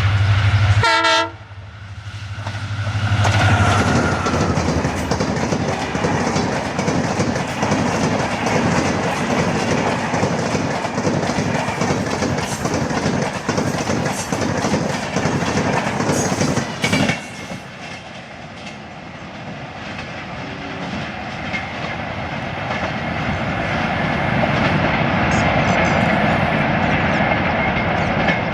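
An EMD WDP4B diesel-electric locomotive sounds its horn briefly about a second in, then passes at about 100 km/h with its engine running, followed by the clickety-clack of an LHB passenger rake's wheels over the rails. The noise drops suddenly about 17 seconds in as the end of the train goes by.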